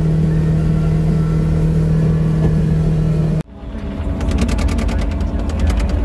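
Polaris Ranger XP 1000 side-by-side's twin-cylinder engine running at a steady speed while towing a drag mat over a gravel road, cut off abruptly about three and a half seconds in. A low, uneven rumble with a quick run of clicks follows.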